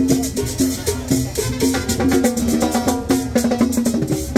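Dance music with drums and percussion keeping a steady beat over a repeating bass line.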